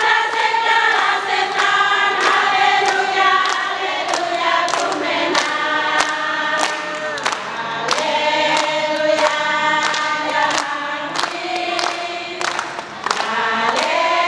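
A group of women singing together in unison, clapping their hands on the beat, about two claps a second.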